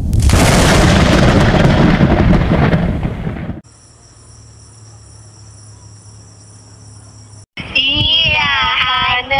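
Thunderclap sound effect, a loud rolling rumble that fades over about three and a half seconds, followed by a faint hum. Near the end a high eerie voice begins singing, sliding in pitch and then holding a long note.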